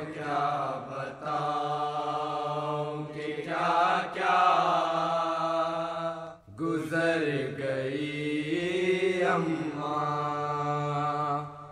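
A voice singing a Muharram noha, an Urdu lament, drawing out long wavering held notes between the verse lines over a steady low drone, with a brief break a little past halfway.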